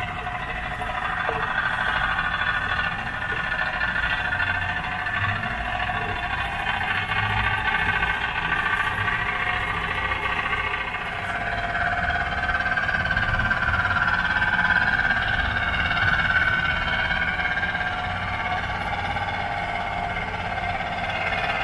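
Small steam engine of a pre-war CK (Kuramochi) Miss Liberty tin-plate toy speedboat running under way, a steady whirring whose pitch wanders a little.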